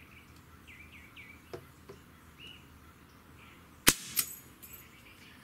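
Sig Sauer MCX Virtus PCP air rifle's trigger breaking under a digital trigger-pull gauge: a single sharp crack as the action fires, about four seconds in, with a smaller click a moment later. Faint bird chirps come before it.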